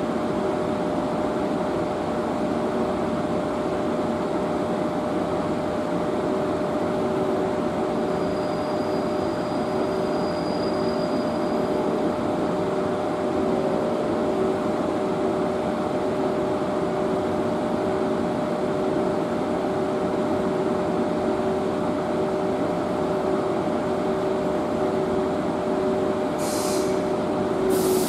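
EF81 electric locomotive standing with its equipment running: a steady hum with a constant whine. Near the end come two short hisses of compressed air, about a second and a half apart.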